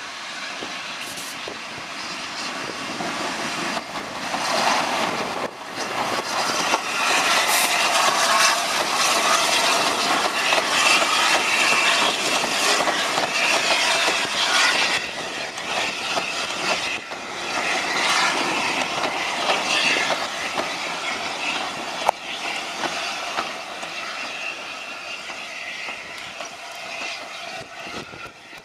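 A1 Pacific steam locomotive 60163 Tornado and its train of coaches running past at speed, with the wheels on the rails clattering and some squealing. The sound builds over the first few seconds, stays loud while the coaches go by, then fades as the last coach draws away.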